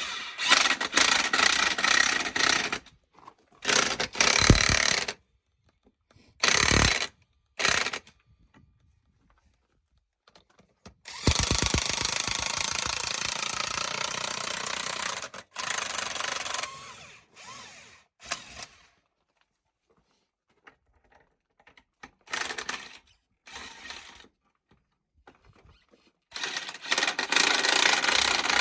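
Power tool running in repeated bursts as it works a bead breaker around a tractor tire to push the bead off the rim. The bursts last from under a second to about five seconds, the longest about eleven seconds in, with short pauses between them.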